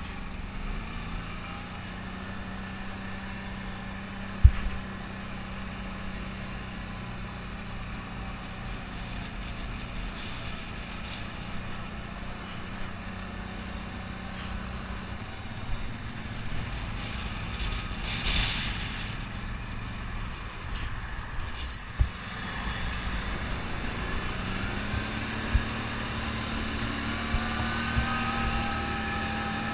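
ATV engine running at low speed, with a steady hum, then picking up in pitch about two thirds of the way through and rising further near the end as the quad accelerates onto the road. A few sharp knocks come through, the loudest about four seconds in.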